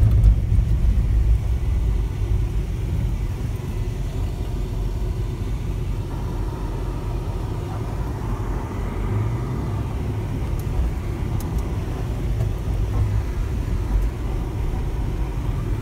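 Vehicle engine and tyre rumble heard from inside the cabin, driving slowly over a rough gravel and stone track. A steady low rumble.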